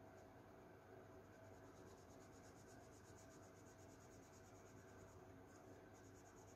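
Faint scratching of a crayon shading back and forth on paper, in very quiet room tone.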